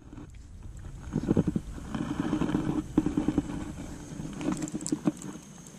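Baitcasting reel being cranked to bring in a frog lure: a low, rhythmic whirr in several short spells. The lure comes back fouled with long weeds.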